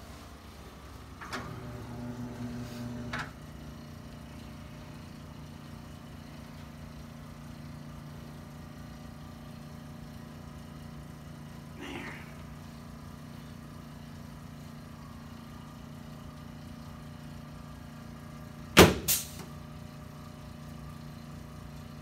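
A seated chiropractic upper-back adjustment: a sharp, loud double crack near the end as the patient is lifted from behind with his arms crossed. A brief steady motor-like hum sounds for about two seconds a second in, over a low steady room hum.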